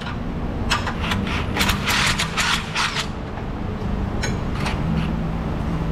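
Hand ratchet turning a bolt through a long socket extension: quick runs of sharp metallic clicks, mostly in the first half, with a few more near the end, over a steady low hum.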